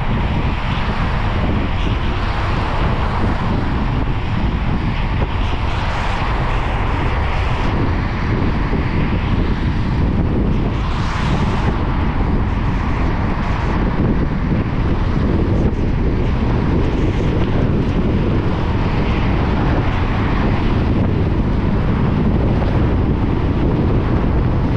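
A car driving on a wet road in the rain: a steady low rumble with the hiss of tyres and rain, and a brief louder hiss about eleven seconds in.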